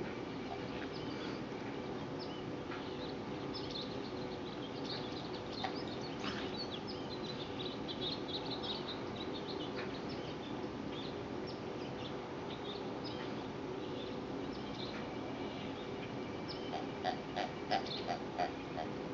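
Steady low outdoor hum with scattered short bird chirps. Near the end comes a quick run of about six short squeaks while the greyhound mouths her plush toy.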